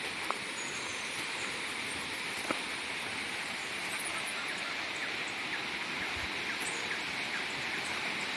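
Steady rushing noise of a waterfall, with two short clicks, one just after the start and one about two and a half seconds in.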